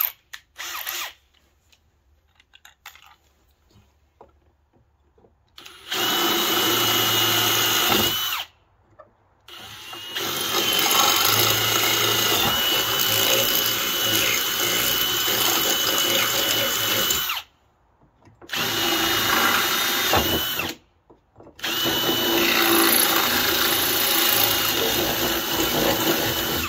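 Cordless drill boring a quarter-inch hole through an ATV's metal rack tube, starting about six seconds in and running in four long bursts with short pauses between them. A steady high whine sits over the cutting noise.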